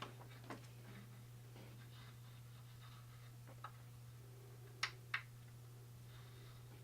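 Faint small clicks of speaker-harness quick-connect terminals being handled and pushed onto a speaker's terminal tabs, with two sharper clicks close together about five seconds in, over a steady low hum.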